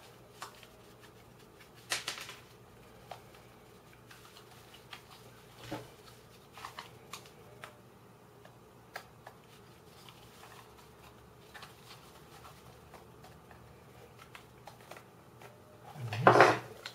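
Light clicks, taps and scraping of 3D-printed plastic puzzle pieces being handled and pushed into a partly assembled SuperX twisty puzzle, with a louder burst of handling noise near the end.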